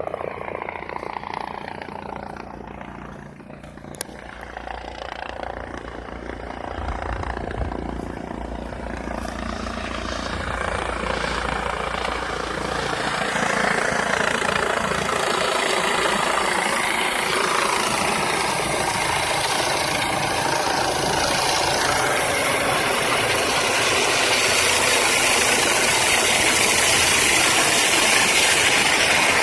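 STAT medical air-ambulance helicopter coming in to land, its rotor noise growing steadily louder as it nears, with the rotor downwash turning into a broad rushing noise on the microphone toward the end. A single sharp click about four seconds in.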